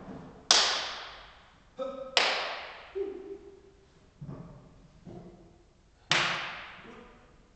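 Three loud, sharp knocks, the second about two seconds after the first and the third about four seconds later. Each rings out in a long echo through a large bare hall, with faint low tones between them.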